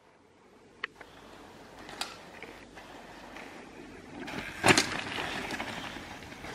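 Bicycle on asphalt: tyre rolling noise with a few sharp clicks, then a loud clatter about four and a half seconds in, followed by steadier rolling noise.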